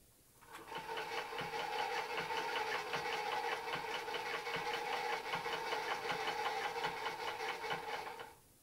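Hand-cranked mechanism of a ca. 1920 Krupp-Ernemann Imperator 35mm cine projector running: a rapid, even mechanical clatter over a steady whir, building up in the first second and stopping shortly before the end.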